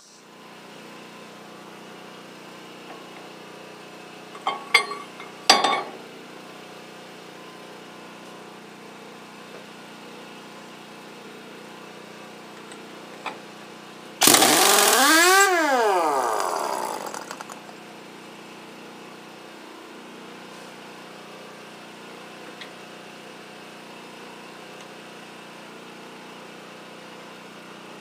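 Impact wrench removing the piston nut from a bulldozer hydraulic cylinder rod. It runs loudly for about three seconds, rising in pitch and then winding down. A few sharp metal knocks come about five seconds in.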